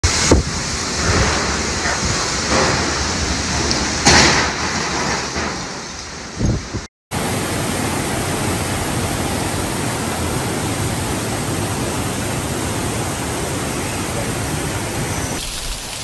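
Storm noise of wind and heavy rain with sudden louder bursts, broken off about seven seconds in. It gives way to the steady rush of floodwater surging and churning through a city street.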